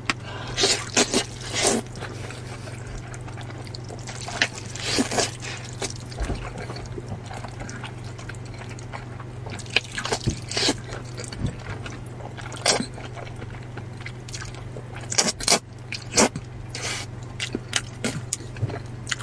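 Rice noodles being slurped and chewed close to the microphone: irregular wet slurps and mouth smacks in clusters, over a low steady hum.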